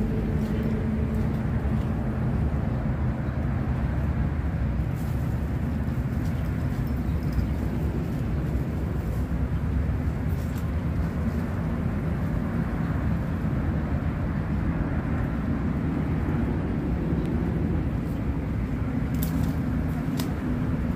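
Steady low outdoor rumble with a faint hum under it, the kind made by wind on the microphone or distant traffic, with a few faint clicks near the end.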